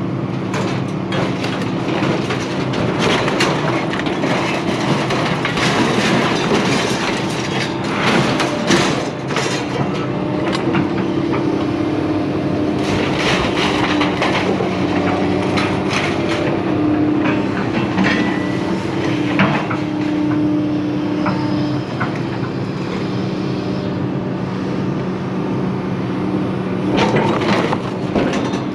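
An engine runs steadily while scrap metal clanks and crashes in irregular knocks, as a load of scrap metal is unloaded onto the scrap pile.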